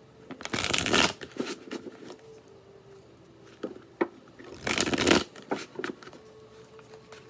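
A tarot deck being shuffled by hand. There are two dense bursts of cards riffling against each other, about a second in and again near five seconds, with light taps and clicks of the cards in between.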